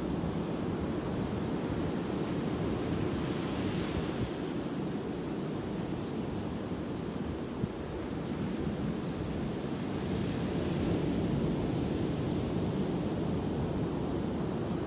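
Ocean surf breaking on a sandy beach: a steady rush of white water that swells louder about four seconds in and again around ten seconds in as waves crash, with wind buffeting the microphone.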